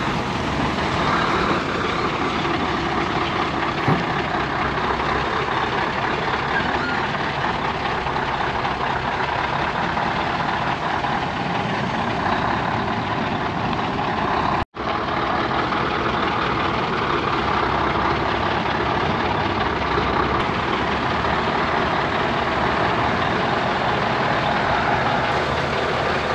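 Scania 4-series V8 truck running at low speed as it backs and turns its trailer, heard as a steady noisy rumble and rush with no speech. The sound drops out for an instant just past halfway.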